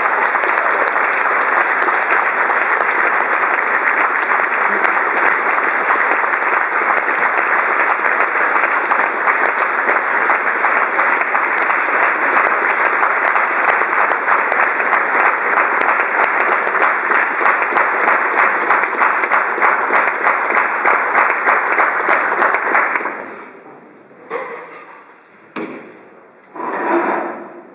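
Audience applauding, a dense, steady clapping that stops about 23 seconds in. A few short, quieter sounds follow near the end.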